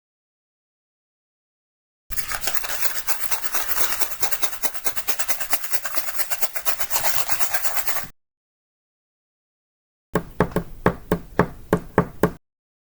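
Rapid, rhythmic rasping strokes, an object rubbed or scraped back and forth, running for about six seconds from about two seconds in. After a pause, a shorter series of about eight sharper scraping strokes follows.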